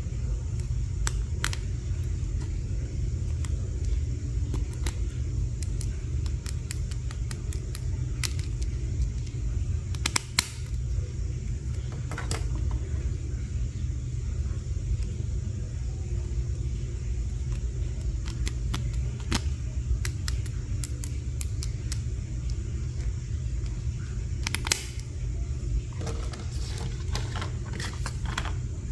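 Scattered sharp clicks and taps of small plastic toy pieces being handled, with a cluster of quicker clicks near the end, over a steady low rumble.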